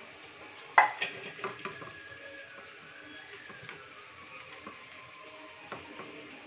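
Stainless steel bowl clanking once sharply against a steel plate as fried potato pieces are tipped into the marinade, with a faint metallic ring after it. Then quieter handling and a few light knocks as the potatoes are mixed by hand in the plate.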